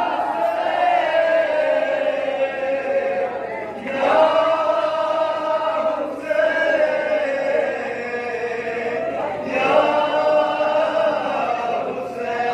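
A group of men chanting a nauha, a Shia mourning lament, together in long held lines, with a new line starting every two to three seconds.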